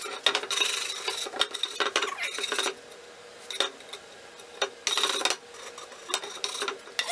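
Sandpaper block rubbed by hand along the edge of an old barn-wood board, rounding off splintery edges and corners: a run of scratchy strokes for a couple of seconds, then a few shorter strokes after a pause.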